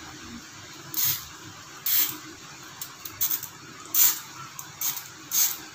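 Aerosol hair-removal foam spray can hissing in several short sprays, about one a second.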